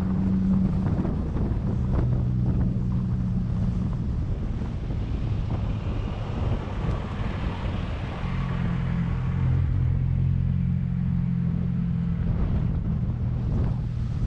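A motor engine running steadily, a low hum that eases off in the middle and comes back up about eight seconds in, with wind noise on the microphone.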